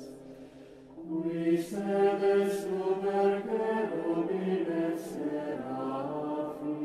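Choral chant: a group of voices singing long held notes that move from pitch to pitch in steps, with the hiss of sung consonants now and then. A short lull just under a second in before the next phrase comes in louder.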